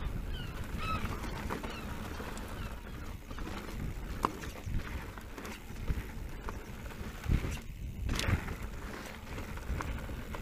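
Specialized Turbo Levo electric mountain bike riding down a gravel track: tyres crunching over loose stones and wind rumbling on the microphone, with sharp knocks and rattles as the bike hits bumps, the loudest a little past four seconds and twice around seven to eight seconds in.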